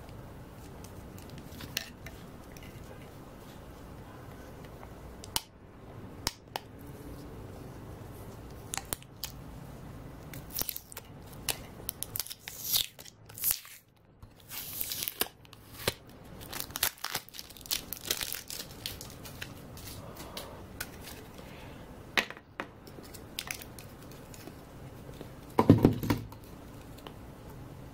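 Silver pouch battery of a power bank being pried and peeled off its adhesive from the plastic frame by hand: irregular tearing and crinkling of tape and foil with small clicks and scrapes, and one louder knock near the end.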